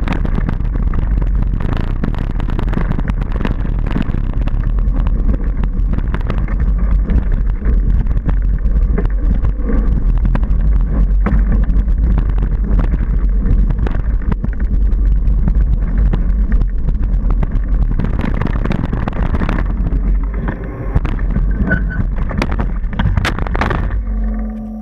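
Wind rushing over a helmet-mounted action camera's microphone and a mountain bike rattling and knocking over a dirt and gravel downhill trail at speed. Near the end a few hard knocks as the rider crashes, after which the noise drops away.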